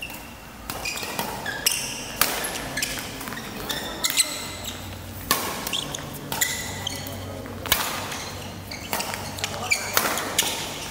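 Badminton rackets hitting a shuttlecock in a fast doubles rally: sharp hits about once a second, with short high squeaks of shoes on the court floor between them, ringing through a large indoor hall.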